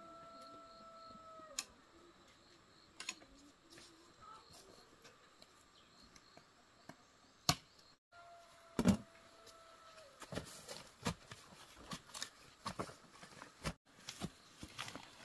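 Sharp knocks of a machete cutting a green bamboo pole, the loudest about nine seconds in, then a quick run of scraping and tapping as the soil and dry grass around a taro plant are dug. A rooster crows, its long held note at the start and again about eight seconds in.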